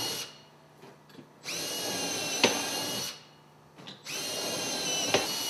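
Cordless drill with a 5/16-inch bit drilling holes through a duct flange via a drilling jig, in short runs of about a second and a half with a steady whine. One run ends just after the start, another comes about a second and a half in, and a third starts about four seconds in. A sharp click falls partway through the second and third runs.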